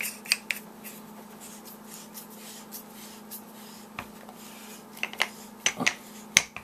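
Hands handling a Mag-Lite D-cell aluminium flashlight: a few quick rubbing strokes at the start, then scattered clicks and scrapes near the end as the head is screwed down onto the barrel over its O-ring.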